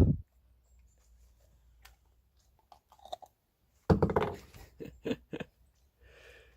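Dog crunching on a Milk-Bone dog biscuit: a thump at the start, then a quick run of loud crunching bites about four seconds in.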